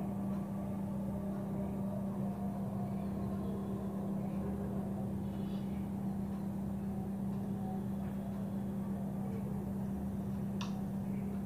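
A steady low mechanical hum with a few faint ticks and one sharp click near the end, the click likely from screwdriver work on the picture tube's mounting screws.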